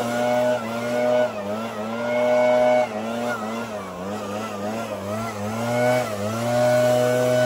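Gas backpack leaf blower engine running at high throttle, blowing debris off a roof. Its pitch dips and climbs back several times in the middle as the throttle is eased and opened again, then holds steady.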